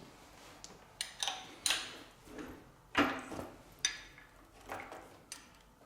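Irregular metallic clinks and knocks, about seven of them, some ringing briefly, from the table-feed (advance) pivot on an Elliott 10M metal shaper being moved and reset by hand.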